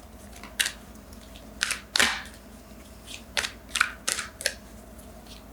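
Oracle cards being handled and shuffled: a string of short, separate taps and flicks at an irregular pace, the loudest about two seconds in.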